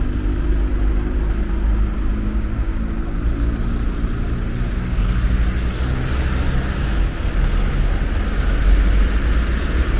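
Street traffic noise: a motor vehicle's engine running with a steady low hum, and a hiss of passing traffic that grows louder in the second half.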